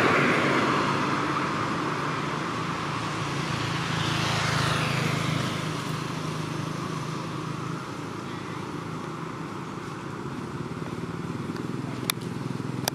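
Road traffic: motor vehicles passing, one at the start and another about four to five seconds in, over a steady low engine hum. Two sharp clicks near the end.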